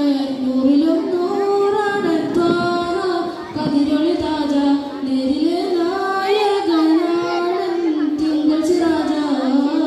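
A boy singing a madh song, a devotional song in praise of the Prophet, solo into a handheld microphone, in long held notes that rise and fall in an ornamented melody.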